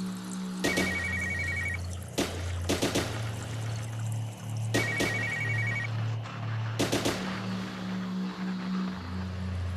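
Background music with steady bass notes and sharp percussive hits, and a high trilling two-tone figure, like a phone ring, lasting about a second and coming back about every four seconds.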